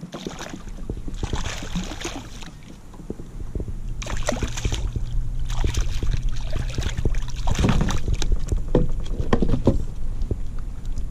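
Water splashing and sloshing around a kayak, with knocks and rattles against the hull, in several short bouts over a low steady rumble.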